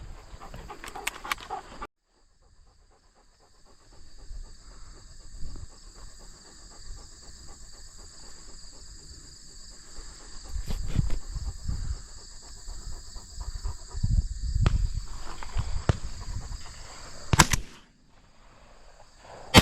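Insects drone steadily at two high pitches, with low rumbling handling or wind noise in the middle stretch. A single sharp crack comes near the end.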